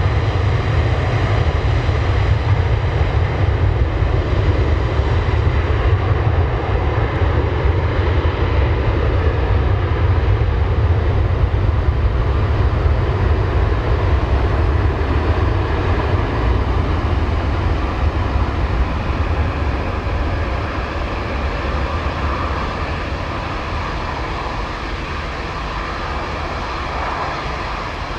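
Airbus A330 twin jet engines at takeoff power during the takeoff roll: a loud, steady jet noise with a deep rumble, growing gradually fainter over the last ten seconds or so as the airliner moves away down the runway.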